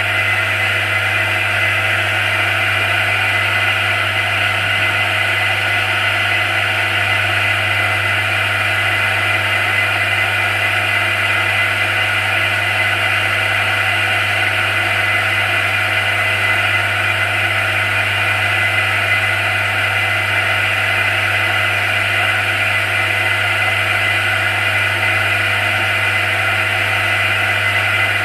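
Hot water pump running steadily: a constant low hum with a high whine and hiss over it.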